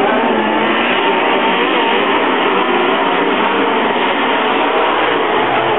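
Several dirt-track race car engines running together as the pack goes round, a dense drone with several pitches wavering up and down.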